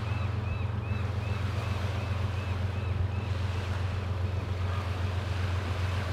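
Low, steady drone of a distant BNSF freight train's diesel locomotives, under lapping waves and light wind on the microphone. A gull's quick run of high repeated calls fades out about two thirds of the way through.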